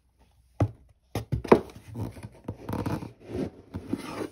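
A plastic measuring cap scooping laundry powder and tipping it into a plastic tub. A few sharp knocks of the cap come first, then a grainy rustle of powder pouring, with small scrapes and clicks.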